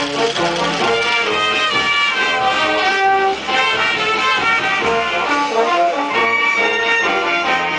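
Instrumental music led by brass instruments, playing a busy melody of short, quickly changing notes at a steady level.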